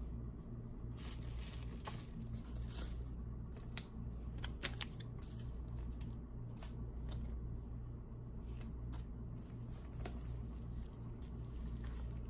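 Small parcel packaging being opened and handled: irregular rustling, tearing and crinkling with scattered small clicks, over a steady low hum.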